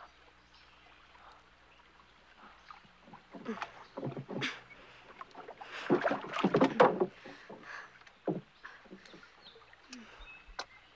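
Oars dipping and splashing as a wooden rowboat is rowed, in several uneven strokes, the loudest a little past the middle.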